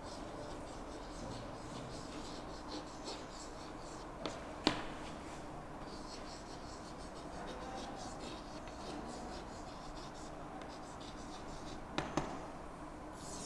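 Chalk writing on a chalkboard: faint scratching of the chalk as words are written, with a few sharp taps of chalk on the board, one about four and a half seconds in and two close together near the end.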